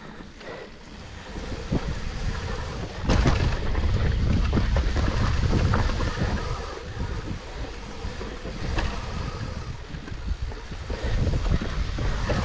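Wind buffeting the microphone and the rumble of a Trek Rail 7 electric mountain bike's tyres rolling down a dirt trail over leaves and stones, with frequent clicks and rattles from the bike. The rumble grows louder about three seconds in as the bike picks up speed.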